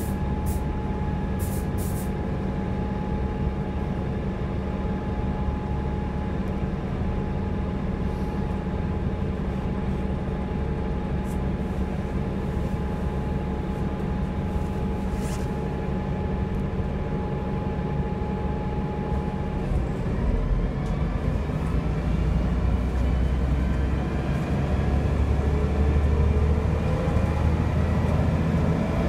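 Bus diesel engine heard from inside the passenger saloon, running steadily with a held whine at first. About two-thirds of the way through, the bus pulls away and the engine and transmission note climbs in pitch and gets a little louder.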